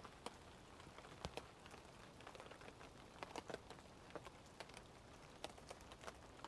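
Faint patter of falling water drops: irregular light ticks, several a second, over a soft hiss.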